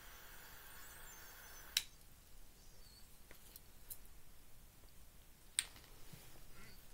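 Faint hiss of a lighter flame held to a bong bowl, cut off by a sharp click just under two seconds in; another sharp click sounds near the end.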